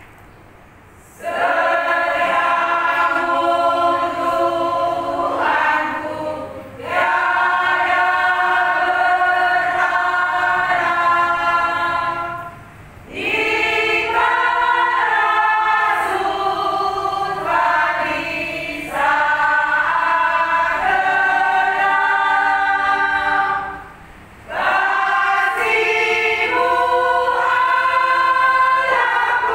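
Women's choir singing unaccompanied, in long phrases with short breaks between them; the singing begins about a second in.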